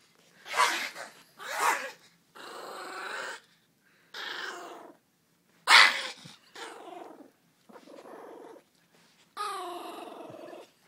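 Yorkshire terrier growling in play in a run of separate bursts, some long and steady, a few short and loud.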